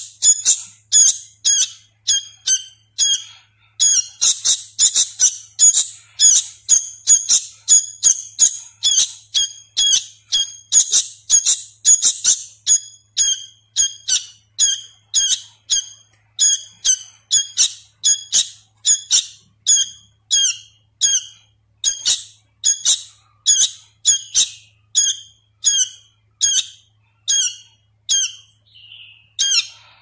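A young hand-fed sooty-headed bulbul chick calling over and over in short, high chirps, wide-gaped with its wings fluttering as it begs. The chirps come thick and fast at first, then more spaced out, and grow faint near the end.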